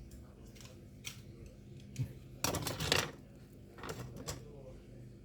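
Small hard objects being handled and set down on a work surface: scattered light clicks and clatters, with a denser cluster of knocks about two and a half to three seconds in.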